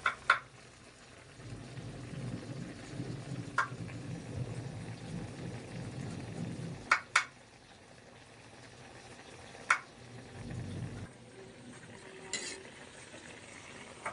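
Meat pieces frying in oily liquid in a metal pan, a steady low sizzle and bubbling, with several sharp clicks scattered through.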